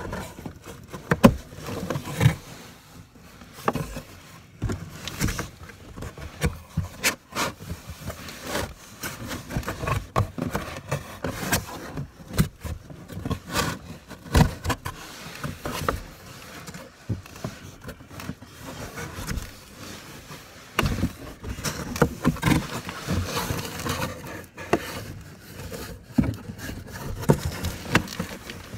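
Cardboard box flaps scraping, rustling and knocking as they are pushed and folded shut from inside the box, with irregular sharp knocks among the rubbing.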